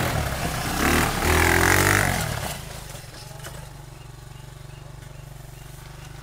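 Dragon 200 quad bike engine revving loudly as the ATV passes close by, then settling to a quieter, steady drone about two and a half seconds in as it rides off through tall grass.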